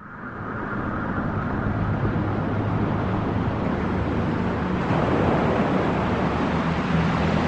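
Electronic background music fading in: a hiss-like wash over low held notes, which change about five seconds in.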